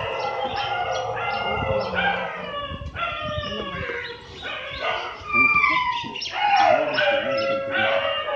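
A dog crying: a steady run of high yelps and whines, each falling in pitch, growing louder, with longer drawn-out falling whines in the last three seconds.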